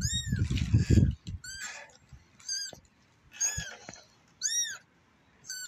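A young kitten mewing six times, about once a second, each a short high-pitched mew that rises and falls in pitch. A low rumble sits under the first mew.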